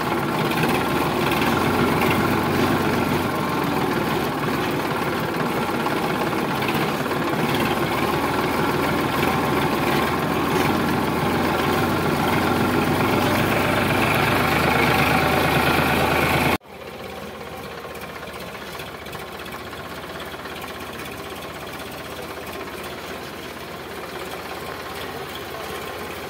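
Sonalika DI 745 tractor's diesel engine running steadily while driving, heard close up from the driver's seat. About two-thirds of the way through it cuts suddenly to a quieter, more distant engine sound as the tractor hauls a loaded trolley through mud.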